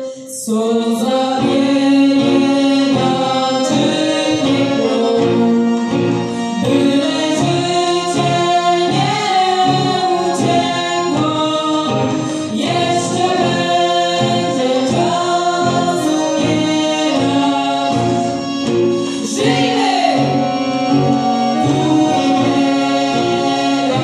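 Live folk band: several voices singing a song together in Polish, accompanied by accordion, acoustic guitar, a brass horn and a snare drum. The singing comes in just after the start, following a short break.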